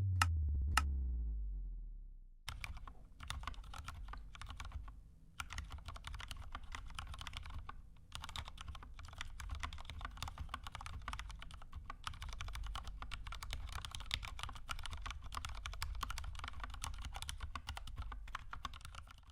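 Fast typing on an Anne Pro 2 mechanical keyboard with lubed red switches and XDA keycaps: a dense, even clatter of keystrokes starting about two and a half seconds in, with short pauses near five and eight seconds. Before it, a low tone falls in pitch over the first couple of seconds.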